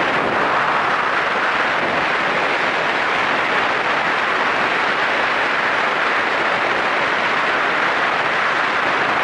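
Steady rush of wind over the microphone mixed with road and engine noise from a Yamaha SRX400 motorcycle being ridden at speed.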